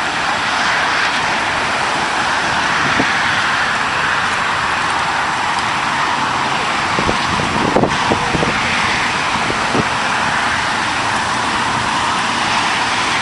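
Steady road-traffic noise from highway cars and trucks, with a few faint knocks about seven to ten seconds in.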